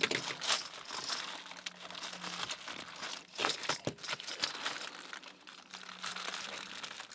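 Package wrapping being handled and opened by hand: irregular crinkling and rustling with scattered sharp crackles.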